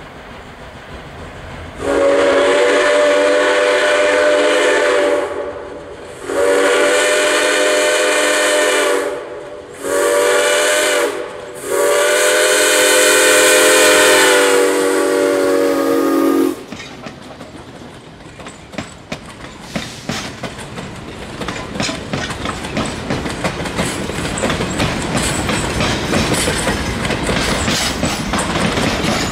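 Locomotive horn sounding a chord in the grade-crossing signal: two long blasts, a short one and a long one. It is followed by the rattle and clickety-clack of the train's wheels on the rails, growing louder as the train comes closer.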